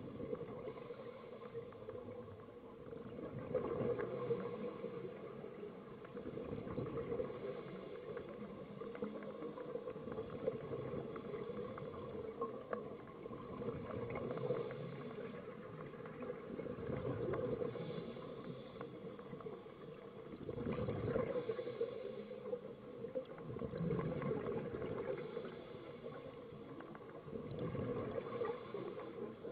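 Scuba diver's breathing heard underwater: regulator exhaust bubbles gurgling in swells that come every three to four seconds.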